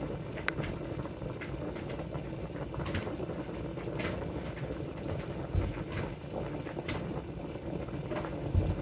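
Scattered light clicks and knocks of kitchen utensils and dishes being handled at a counter, with two duller thumps, over a steady low hum.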